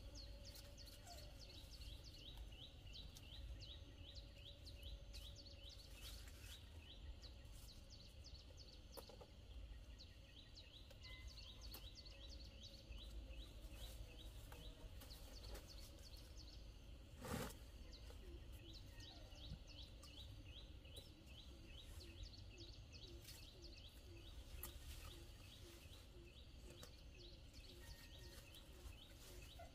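Faint, rapid high chirps, several a second in long runs, over a low steady rumble, with one sharp knock about seventeen seconds in.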